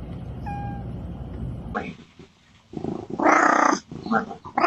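Domestic cat yowling: one loud drawn-out yowl of about a second near the middle, then shorter calls.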